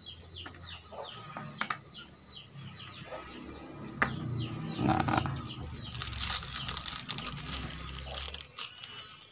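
Plastic sheeting and a plastic bottle being handled and tied with a rubber strip: rustling and crinkling with small knocks, densest a little past the middle. A bird chirps over and over in the background, with short falling calls through the first half.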